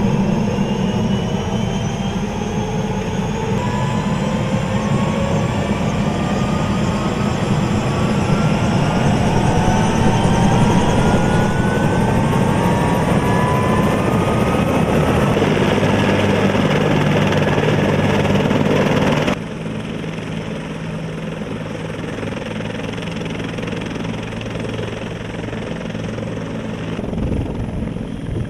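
Turbine helicopter running up on the ground, its engine whine rising steadily in pitch over the rotor noise as it spools up toward takeoff. About two-thirds of the way through the sound drops suddenly to a quieter, steady rotor and engine drone.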